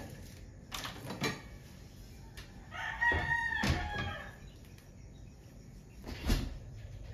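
A rooster crows once, about three seconds in: a single drawn-out call lasting about a second and a half. A few sharp knocks sound around it, the loudest near the end.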